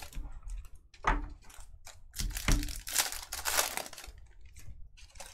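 Trading cards being handled by hand: irregular rustling, sliding and crinkling as cards are flipped through and shifted, loudest between about two and four seconds in.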